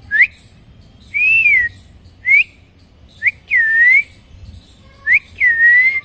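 Clear two-part whistles, like a wolf whistle: a short rising note then a longer note that falls away, heard three times.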